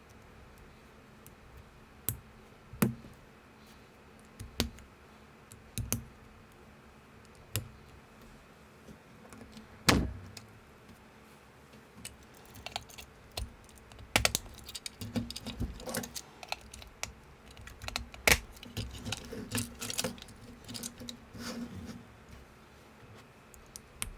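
Plastic building bricks clicking and snapping together as a model is assembled by hand. Scattered single clicks at first, a sharp louder snap about ten seconds in, then a busier stretch of rapid clicking and clattering of pieces.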